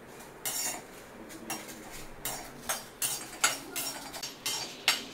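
Perforated steel ladle scraping and clinking against a steel kadai as dried red chillies are stirred and dry-roasted. It is a string of irregular scrapes that come faster from about two seconds in.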